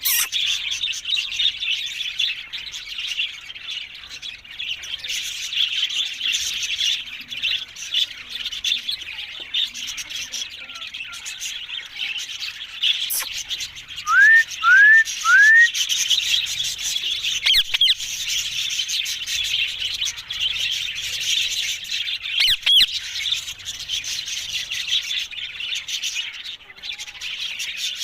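Ringneck parakeets calling continuously in high-pitched chatter, with three short rising whistles in quick succession about halfway through.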